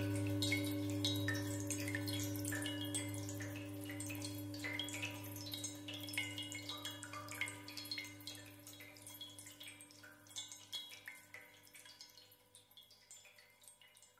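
Ambient meditation music fading out: a low sustained drone with a few held tones above it dies away, while water-drop plinks keep dripping over it and are left alone near the end.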